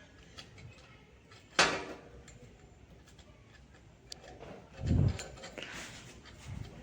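A sharp knock about a second and a half in, then a dull low thump near five seconds, with faint scattered clicks of hands working on parts.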